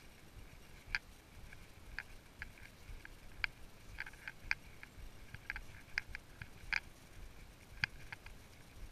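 Horse walking under a rider, with light clinks from its bit and bridle at irregular moments, about a dozen, over a low rumble of movement.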